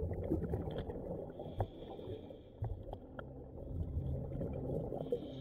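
Muffled underwater noise picked up through an action camera's waterproof case: a dense low rumble with scattered clicks and knocks, and a hiss twice. A steady low hum comes in about halfway through.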